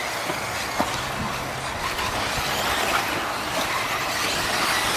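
1/10-scale electric 4WD RC buggies with 13.5-turn brushless motors racing: a steady whir of motors and tyres with a faint rising and falling whine and a few small clicks.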